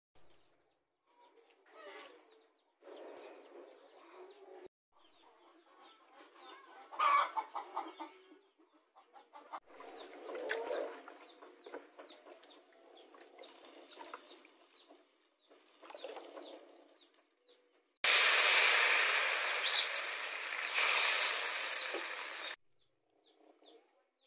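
Chickens clucking, with irregular small sounds. Near the end comes a loud, steady hiss lasting about four seconds that starts and stops abruptly.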